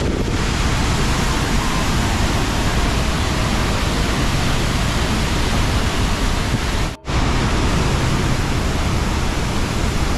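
Waterfall's falling water rushing in a steady, dense wash of noise, cut off for a split second about seven seconds in.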